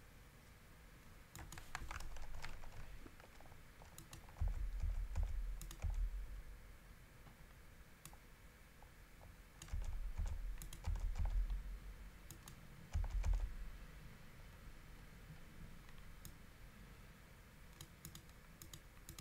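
Computer keyboard typing in irregular bursts of clicks, with dull low thumps in three stretches that are the loudest part.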